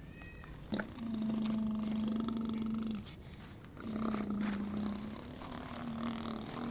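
Electric motor of a radio-controlled model construction machine humming. It starts about a second in and runs for about two seconds, stops, then comes on again about four seconds in and runs in shorter spells.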